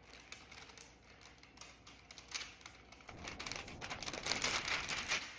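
Flour being added to a bread machine pan: rustling, crinkling and small clicks, getting louder and busier about three seconds in.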